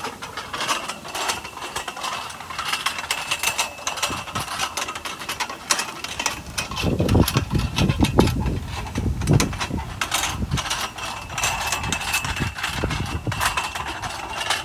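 Metal pivot of a long pole-arm mounted on a boulder squeaking and clanking as the arm is pushed round, with a recurring high squeak and many small knocks. A heavy ball on the arm's end rolls along a dirt rut, with a low rumble from about seven to ten seconds in.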